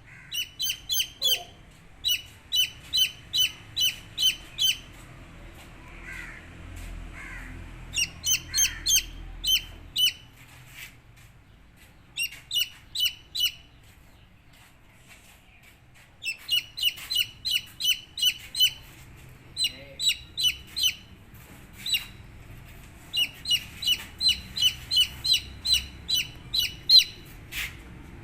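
Baby chicks peeping: runs of short, high-pitched chirps, about three or four a second, with quieter gaps around a quarter of the way in and again about halfway through.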